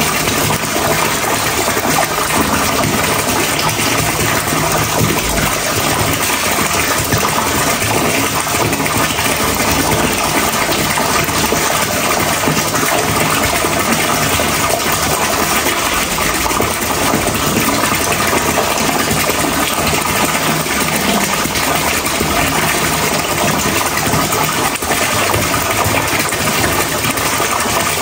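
Steady rushing water, loud and unchanging.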